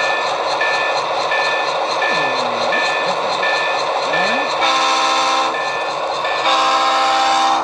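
Sound decoder of an Athearn HO-scale MP15AC diesel switcher playing its locomotive sounds through the model's speaker. A bell rings steadily, about one and a half strikes a second, over the engine sound. Two chord-horn blasts come about four and a half seconds in and about six and a half seconds in, the second one just over a second long.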